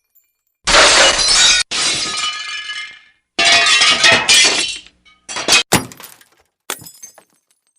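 Glass breaking repeatedly, each crash trailing off into tinkling shards: two crashes close together about a second in, another larger one about three and a half seconds in, then a few short sharp smashes and clinks.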